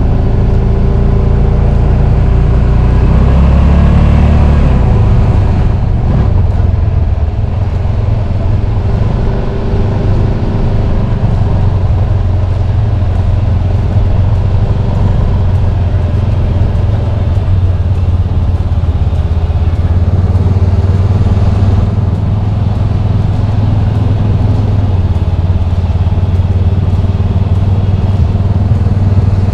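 Motor vehicle engine running steadily while driving, loud and close, with a change in the engine note about five seconds in.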